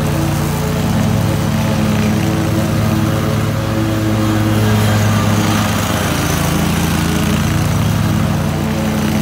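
Zero-turn riding mower's engine running steadily while it tows a spike aerator across the lawn, a steady low hum that grows a little louder about halfway through as the mower passes close.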